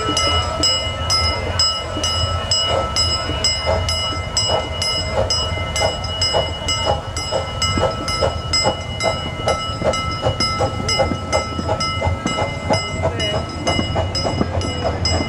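A 1/3-scale 1905 steam locomotive running past with its passenger cars, giving rhythmic beats that quicken as it gathers speed. A grade-crossing bell rings steadily over it at about three strokes a second.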